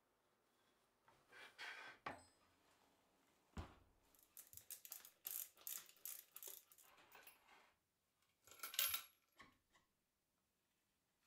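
Faint handling sounds of plywood parts and small metal hardware on a workbench: a single wooden knock about three and a half seconds in, then a run of small metallic clicks and clinks as a fitting is worked with a hand tool, and a brief scrape near the end.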